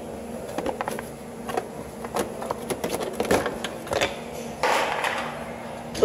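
Scattered clicks, taps and rustling from hands handling the car's plastic under-engine splash shield, with a short scraping rush about five seconds in, over a faint steady hum.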